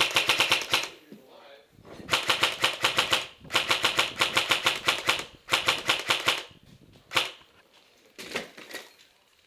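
Airsoft gun firing on full auto: four rapid bursts of about a dozen shots a second, each a second or so long, then a single shot and a short burst near the end.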